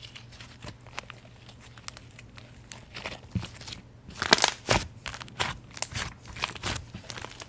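Soft, fluffy white slime being stretched, pressed and squished by hand, giving off scattered small crackles and pops. The crackles are thickest and loudest about four to five seconds in.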